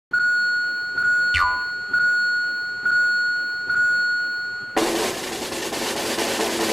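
Railroad crossing warning bell ringing, a steady 'kan-kan' struck five times about once a second. A quick falling whistle-like glide comes about 1.4 s in. From about 4.8 s the bell gives way to a loud, rapid rattle.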